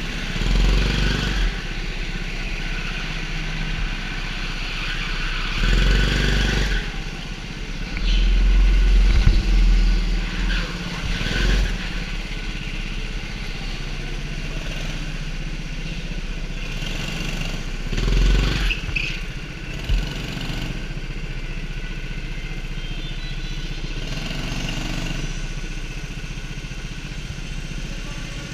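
Go-kart engine running under the driver on track, its note rising and falling from lap driving, with several louder bursts about a second long.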